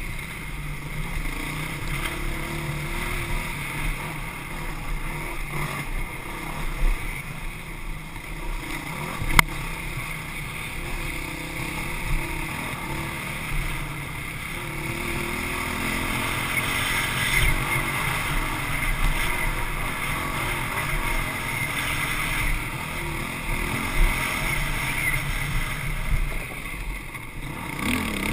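Honda CRF450X dirt bike's single-cylinder four-stroke engine running under riding load, with wind on the microphone. A sharp knock comes about nine seconds in.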